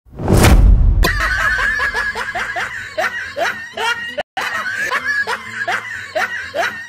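A man spits out a mouthful of drink in a brief sputtering spray, followed by a laughter sound effect of short falling 'hee' sounds about two a second. The laughter cuts out briefly a little past four seconds in and starts again.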